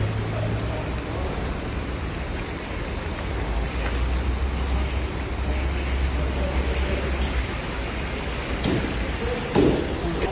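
Oil and broth boiling and sizzling in a giant cauldron of rice pilaf, a steady rain-like hiss over a low hum. A short knock comes near the end.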